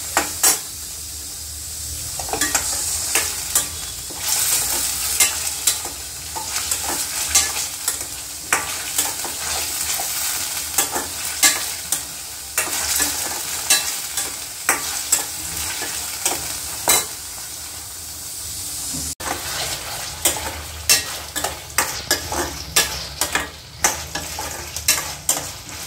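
Boiled mutton pieces sizzling in hot oil in a stainless steel kadai, stirred with a steel ladle that scrapes and clinks against the pan at irregular intervals.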